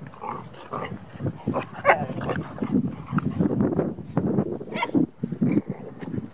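Several dogs playing rough together, growling irregularly, with a few short high yelps or barks that are loudest about two seconds in and again near five seconds.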